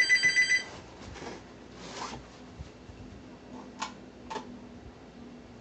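Landline home phone ringing with a rapid pulsing electronic trill, which stops under a second in. Faint rustling and two light clicks follow over a low steady hum.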